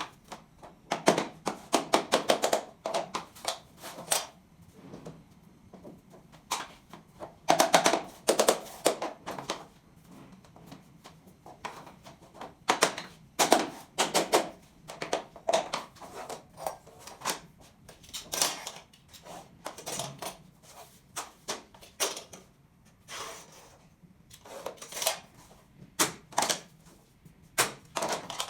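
SPC stone-plastic floor planks being tapped into place: bursts of quick, sharp knocks, several strikes at a time with short pauses between.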